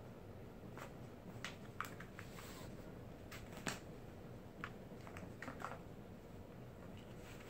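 Light, scattered plastic clicks and taps as a cat paws at the ball inside a plastic circular cat-track toy, about a dozen at irregular intervals, the sharpest a little past the middle.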